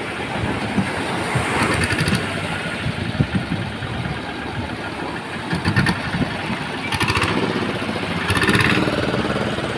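A motor engine running steadily close by, over the wash of waves breaking on the beach.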